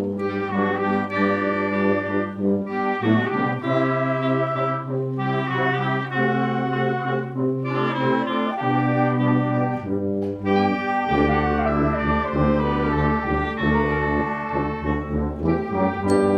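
Brass ensemble playing sustained chords, trumpets and trombones together over a low bass line. The chords and bass notes change every second or two, and the bass drops lower about eleven seconds in.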